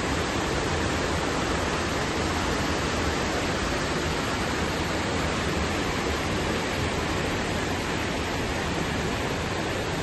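Mountain stream rushing over small stepped cascades: a steady, unbroken rush of water.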